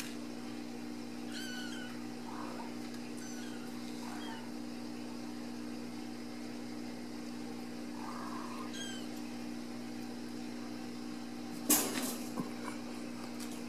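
Ragdoll kittens mewing: several short, high-pitched mews spread over the first nine seconds, over a steady low hum. A short, sharp clatter about three-quarters of the way through is the loudest sound.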